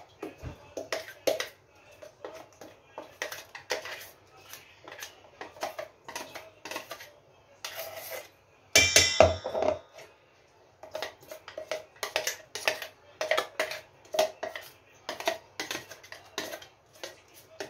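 Ground moong dal paste being scraped and knocked out of a steel mixer-grinder jar into a steel bowl: a quick run of metal scrapes and taps, with one louder metallic clang and ringing about nine seconds in.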